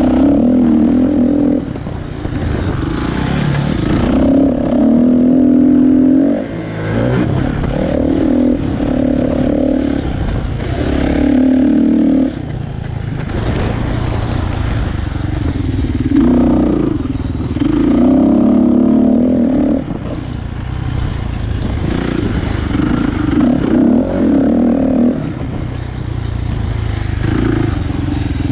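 Kawasaki dirt bike engine being ridden hard, revving up and backing off again and again every second or two, with its pitch climbing and dropping as the throttle is worked.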